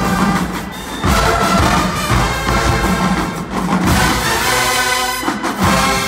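College marching band playing loud, rhythmic music, brass section over pounding drums.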